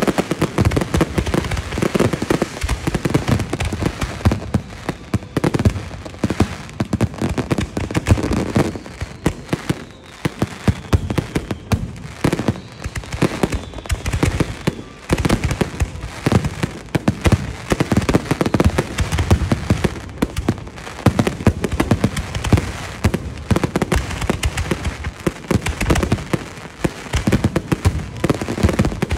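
Fireworks display: aerial shells bursting overhead in rapid, continuous succession, a dense run of bangs.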